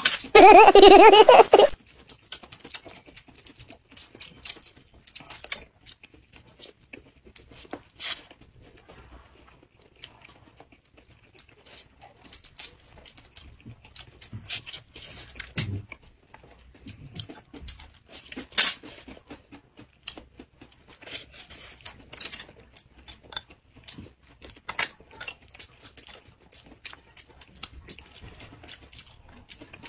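Close-miked eating sounds of two people biting and chewing rolled hand-grabbed pancakes (shou zhua bing): scattered soft crunches and wet mouth clicks, irregular throughout.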